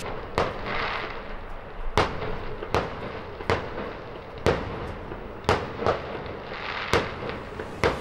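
Aerial fireworks going off: a string of sharp bangs, about one a second, over a steady crackle and hiss of burning stars.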